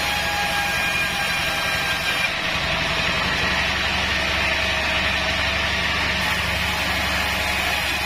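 Taiwan-made Pandan 36-inch band sawmill running and ripping a Bayur timber lengthwise: a steady mechanical hum with faint steady whining tones and the noise of the blade in the wood.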